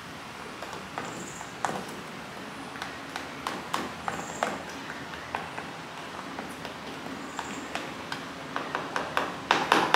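A fork stirring flour and dry seasonings in a clear plastic tub, clicking and tapping against the plastic at an irregular pace, with a quicker run of clicks near the end.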